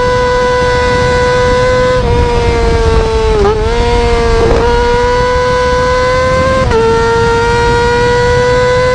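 600cc sport motorcycle engine held at very high revs under throttle, a high-pitched note that climbs slowly and drops sharply at two upshifts. Between the two upshifts the pitch briefly dips and comes back up.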